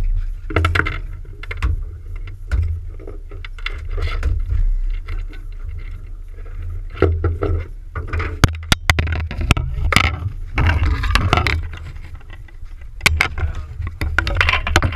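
Steady low rumble aboard a small aluminium fishing boat, with frequent sharp clicks, knocks and rattles of fishing gear being handled on deck.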